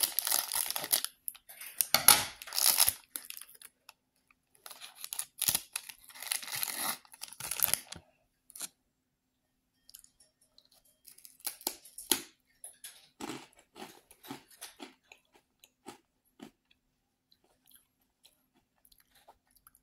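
Scissors cut open a plastic snack bag, with loud crinkling of the plastic over the first several seconds, the loudest about two to three seconds in. In the second half, a crispy puffed-corn snack is bitten and chewed, giving short, quieter crunches.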